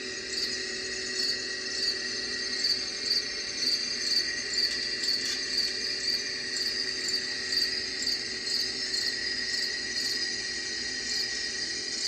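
Crickets chirping in a steady chorus of evenly repeating pulses.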